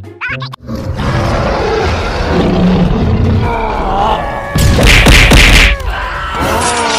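Action-film fight soundtrack: music under impacts, thuds and grunting voices, with a loud noisy burst about five seconds in.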